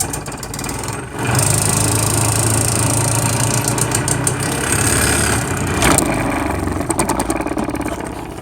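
Salvaged over-the-range microwave vent fan motor running at top speed with half a load on it: a loud, steady motor hum and whir that surges up about a second in and eases slightly near the end. It is spinning too fast for use as a ball mill.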